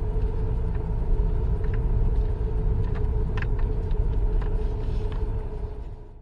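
Car engine idling: a steady low rumble with a constant hum over it, fading away near the end and then cutting off.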